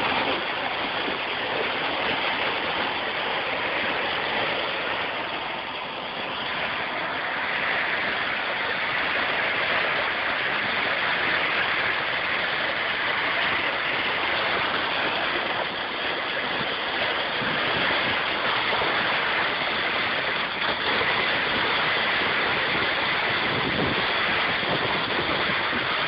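Truck engine running steadily under a constant rushing noise, the sound of concrete equipment at work during a foundation pour.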